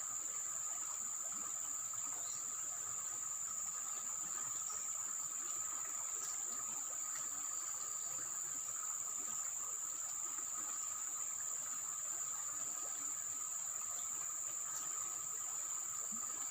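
Steady chorus of insects: a continuous high-pitched trill with a weaker, lower steady tone beneath it, and a few faint ticks.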